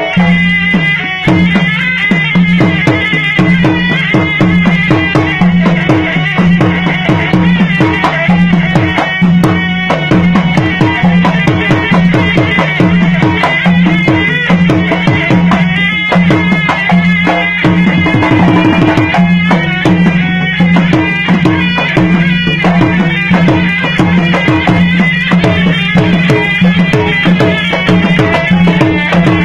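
Gendang silat music: a pair of double-headed gendang drums beat fast, interlocking strokes, many falling in pitch. Above them a serunai plays a continuous melody, over a steady low hum.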